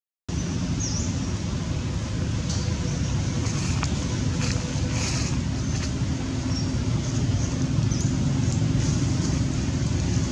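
Steady low rumbling background noise of an open-air scene, with faint high chirps and a few light ticks over it. It starts after a brief dropout at the very beginning.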